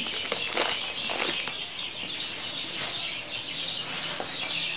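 Plastic shopping bag rustling and crinkling as items are dug out of it, most in the first second and a half, over a steady background of birds chirping.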